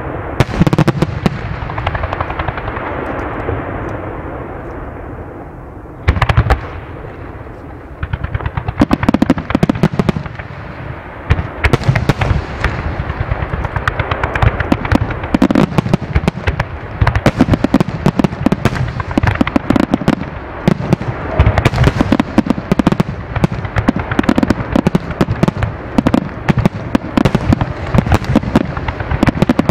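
Aerial fireworks shells bursting: a boom about half a second in followed by a long fading crackle, another sharp burst around six seconds, then from about nine seconds a dense rapid-fire barrage of booms and crackling.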